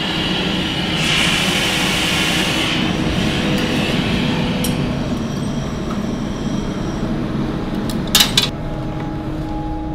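Steady rushing noise of a glass studio's gas furnace or burner, with a brighter hiss for a couple of seconds early on. About eight seconds in come two sharp snips close together as steel shears cut a thread of hot glass.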